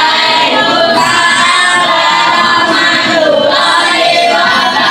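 A group of voices singing together, with children's voices prominent, held notes gliding in pitch throughout.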